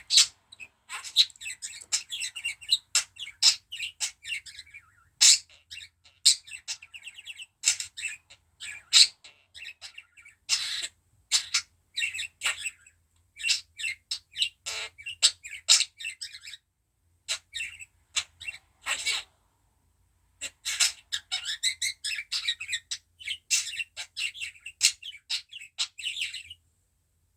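Pet budgerigar giving quick runs of short chirps and clicks, broken by brief pauses; the owner takes these sounds for coughing.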